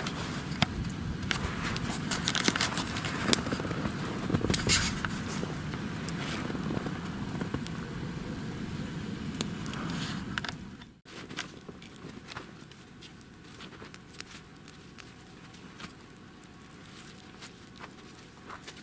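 Wood campfire crackling with sharp pops and snaps. About halfway through it cuts off abruptly and resumes quieter, with fainter scattered crackles.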